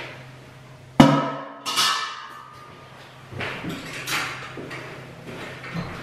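Heavy stainless steel DeLaval milker bucket set down with a loud metallic clank about a second in that rings briefly, followed by lighter clinks and knocks of metal parts as the milking unit is put together.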